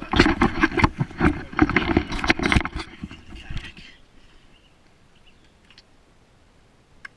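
Close rustling, scraping and knocking of a plastic kayak and gear being handled and pulled through tall grass, with the camera jostled along with it. It is loud for about the first four seconds, then settles to quiet with a few faint high ticks.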